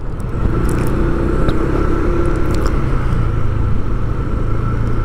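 A vehicle's engine running with a steady low hum and road noise as it drives along.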